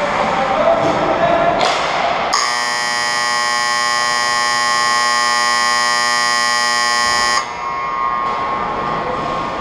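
Ice rink's game-clock buzzer sounding one loud, steady tone for about five seconds, then cutting off suddenly, signalling the end of play. Rink noise of skates on ice comes before and after it.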